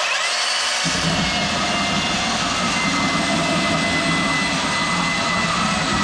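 Ryobi One+ 18V brushless belt sander switched on, its motor running up to a steady high whine. About a second in, a lower, rough sanding noise joins as the 80-grit belt bites into the painted oak.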